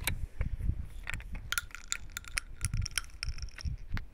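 Sharp metallic clicks and clinks from a .410 revolver shotgun's cylinder being handled by hand, with a few short ringing clinks near the middle.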